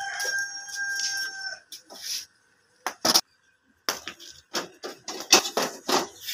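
A rooster crowing, its long held final note ending about a second and a half in. After it comes a run of short knocks and rustles from things being handled.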